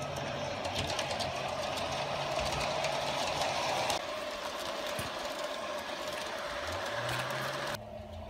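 Garden-scale model steam locomotive and coach running along the track: a steady mechanical whir with many small clicks from wheels on the rails, loudest as it passes close. The sound drops suddenly about halfway through and again near the end.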